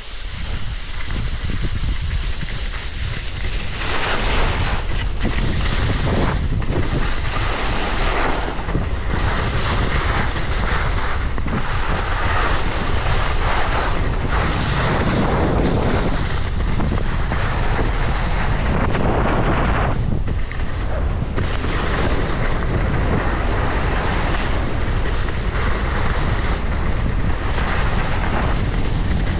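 Wind rushing over the camera microphone of a skier going downhill, mixed with skis hissing and scraping over soft spring snow. It grows louder about four seconds in as the skier picks up speed, then holds steady.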